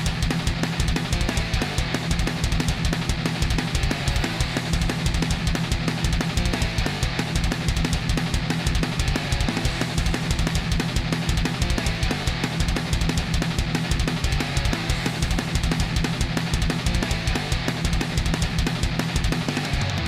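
Background music: fast rock or metal with heavy drums, bass drum and electric guitar.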